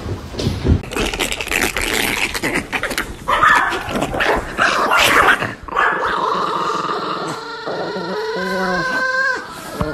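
A dog vocalising: rough, noisy sounds for the first few seconds, then drawn-out calls that waver in pitch during the second half.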